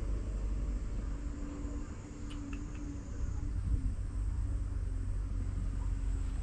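Low rumble of wind buffeting an action camera's microphone, with a faint steady hum under it and a few light ticks about two and a half seconds in.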